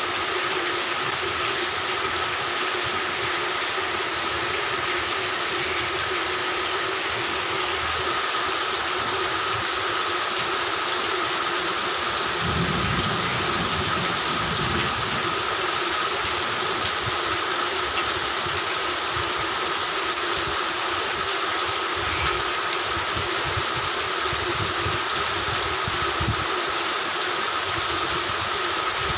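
Steady rain with a continuous chorus of frogs calling, heard as unbroken droning tones over the hiss of the rain. Low rumbles of distant thunder come and go, strongest about twelve seconds in.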